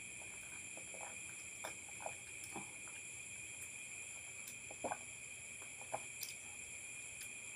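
A steady, high-pitched chorus of night insects such as crickets, with a few short, soft gulps as juice is swallowed from a glass.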